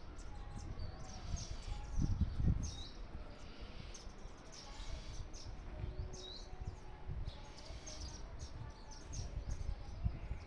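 Small birds chirping, many short high calls in quick succession. A low, noisy rumble runs under them and swells into louder bumps about two seconds in and again near the end.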